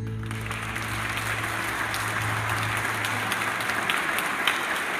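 Audience applauding at the end of a choir song, a dense even clapping that starts as the last chord stops. A low steady tone lingers under the clapping for about the first four seconds.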